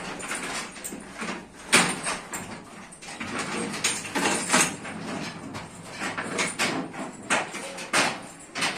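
Young bulls moving about with irregular knocks and scraping, rustling noises, the sharpest knocks about two seconds in and near the end.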